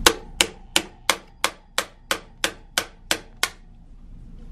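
Hammer striking a Brompton folding bike's frame hinge to drive out its worn hinge pin: eleven sharp, even blows, about three a second, stopping near the end.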